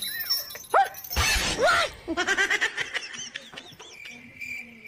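A sudden burst of noise with short chirping glides in pitch, then cricket chirping that starts abruptly about four seconds in as an even, pulsing high chirp.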